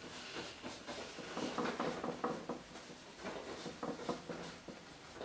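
Light, irregular taps and scrapes of a painting brush working oil paint, mostly in the middle of the stretch.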